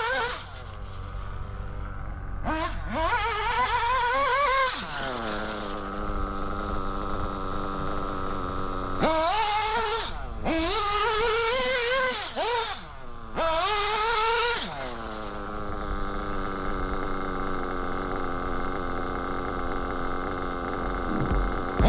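Novarossi 'Black Engine' nitro RC engine with a tuned pipe, running at a steady idle and opened up in about four bursts of throttle, each falling back to a steady idle. It holds its idle well, the sign of a good tune.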